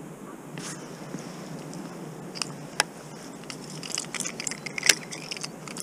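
Handling noise: irregular sharp clicks and a light metallic jangle, thickest and loudest around four to five seconds in, over a steady low background noise.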